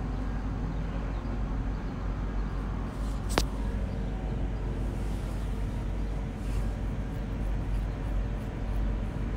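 Wire whisk beating a thick wheat-flour batter in a bowl, soft sloshing over a steady low hum, with one sharp click about three seconds in.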